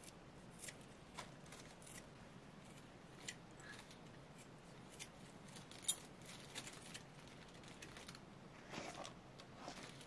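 Faint, scattered snips of large scissors cutting bunches of thin fresh wild greens, one sharper snip about six seconds in.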